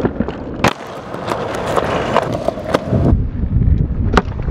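Skateboard nollies on concrete: sharp wooden clacks of the board popping and landing, the loudest a little under a second in, with the hard wheels rolling on the concrete, louder in the second half.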